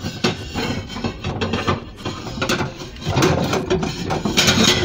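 Close, irregular rustling, scraping and clicking of things being handled, like foil and plates being moved about, with a louder burst of rustling near the end.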